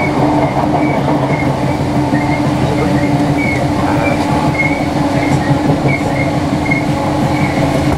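Inside a ScotRail Class 318 electric multiple unit on the move: a steady rumble of wheels on rail under a steady electrical hum. Short faint high squeaks come every second or so.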